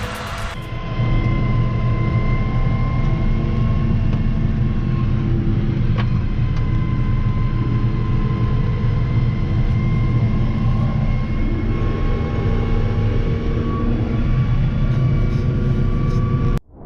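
Farm tractor engine running steadily under load, with a thin steady whine above the engine note; it cuts off suddenly near the end.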